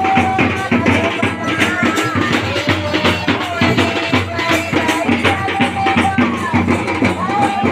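Music: a wavering melody line over busy drum percussion.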